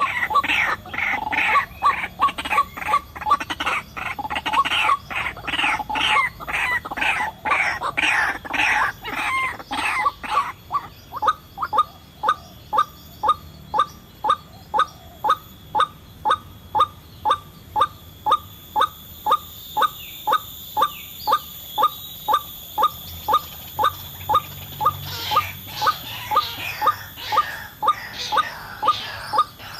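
White-breasted waterhen (ruak-ruak) calling: a short note repeated rhythmically about twice a second, the lure call used to draw the birds in. The calls are fuller, with other overlapping notes, in the first third and again near the end, and are single and clean in between.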